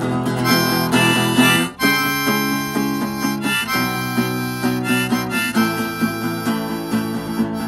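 Harmonica playing held notes over a strummed acoustic guitar, an instrumental break in the song, with a short gap in the harmonica about two seconds in.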